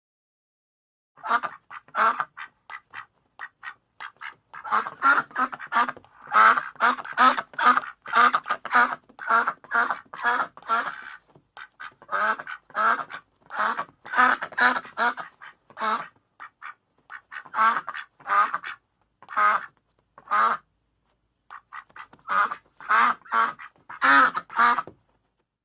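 Ducks quacking: runs of short quacks, several a second, broken by a few brief pauses, stopping shortly before the end.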